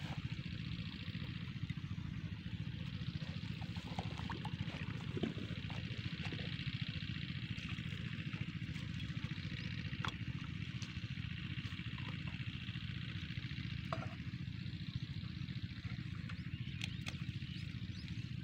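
Small Chinese single-cylinder diesel engine running steadily, driving an irrigation water pump with an even, fast low chug. A few sharp metallic clicks and knocks come as the pump fittings are handled.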